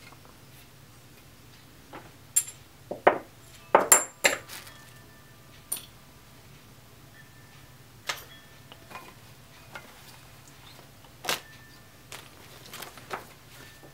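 Glazed ceramic fountain lid and bowl clinking and knocking as they are handled: a quick run of clinks about two to four seconds in, some ringing briefly, then scattered single knocks.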